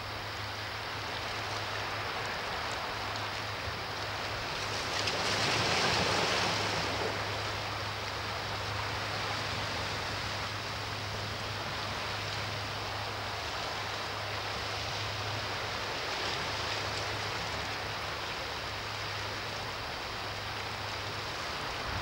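Sea waves washing against a rocky shore: a steady wash of surf, with one larger wave swelling up and falling away about five to seven seconds in. A steady low hum runs underneath.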